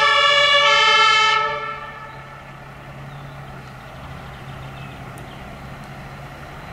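Fire engine's two-tone siren alternating between its two pitches, cutting off about a second and a half in. After that the truck's engine runs on with a low steady hum.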